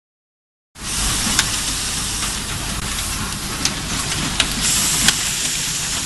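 Automated power-plug assembly machine running: after a brief silence, a steady hiss with a low rumble underneath, broken by four sharp mechanical clicks.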